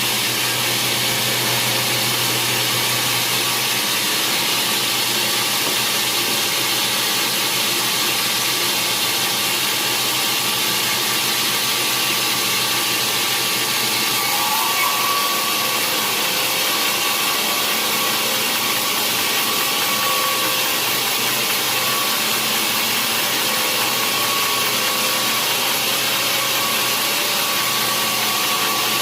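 Sawmill machinery running steadily: a continuous loud mechanical noise with faint steady whines and no breaks.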